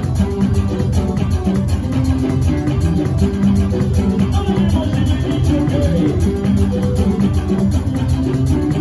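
Live band music: a drum kit played with sticks keeps a steady beat under plucked guitar and a strong bass line.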